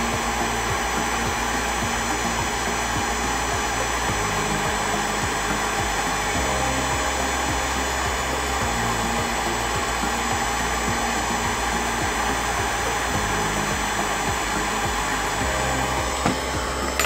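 Hot air rework gun blowing steadily while it heats the solder of a micro USB charging port on a speaker's circuit board to desolder it. The airflow cuts off about a second before the end. Quiet background music plays underneath.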